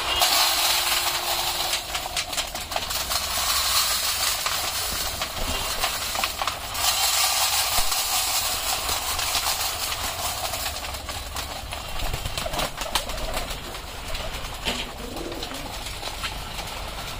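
Mixed grain poured from a plastic tub onto feeding trays, a rattling hiss loudest near the start and again from about seven seconds in, among a flock of domestic pigeons pecking and scuffling at the feed with occasional cooing.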